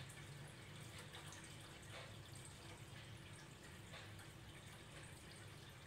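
Near silence: room tone with a low steady hum and faint ticks about once a second.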